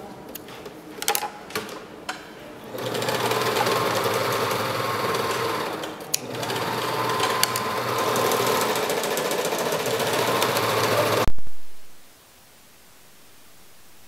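A few light clicks of scissors snipping thread, then a Singer serger (overlock sewing machine) running steadily for about eight seconds, with a brief break about six seconds in. It cuts off abruptly near the end, leaving a faint hiss.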